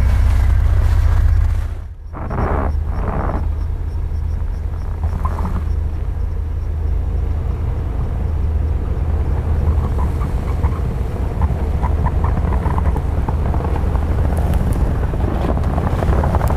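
Off-road SUV engine running with a steady low rumble; it dips briefly about two seconds in, then carries on.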